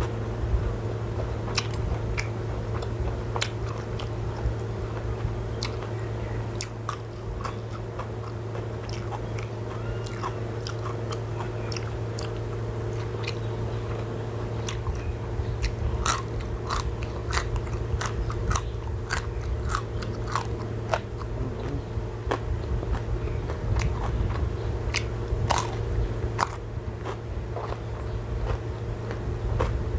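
Close-miked eating: a person biting and chewing crunchy food, with many sharp crisp crunches over a steady low hum.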